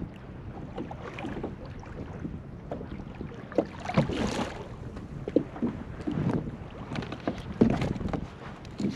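Water slapping against a pedal kayak's hull with wind on the microphone, broken by scattered knocks and splashes; a louder hissing splash comes about four seconds in.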